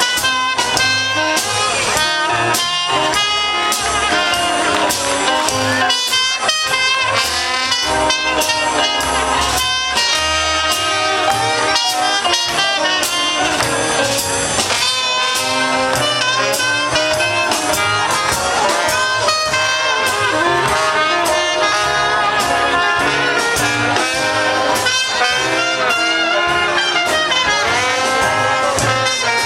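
Music with horns playing a melody over a steady drum beat, in a jazzy style.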